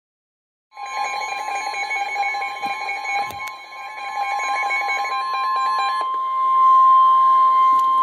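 NOAA Weather Radio warning alarm tone: a steady, loud single high tone near 1050 Hz that begins just under a second in and holds. Until about six seconds in, a rapidly stepping electronic beeping pattern sounds over it.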